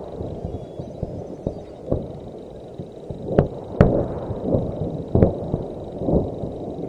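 Ammunition exploding in a warehouse fire: a continuous low rumble broken by irregular sharp cracks and bangs, the loudest a little after three seconds in, near four seconds and just after five seconds.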